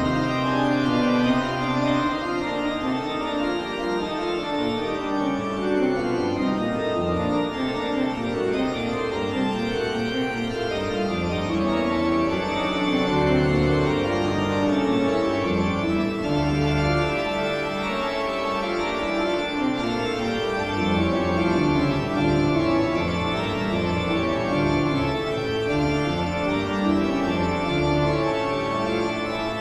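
Horror-style organ music: sustained organ chords over a slowly shifting bass line.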